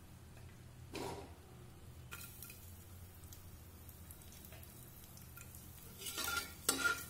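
Chopped garlic frying in hot oil in an aluminium pressure cooker: a short burst about a second in as it goes in, faint sizzling after, then from about six seconds in a steel spatula stirring and scraping the pot with louder sizzling and clinks.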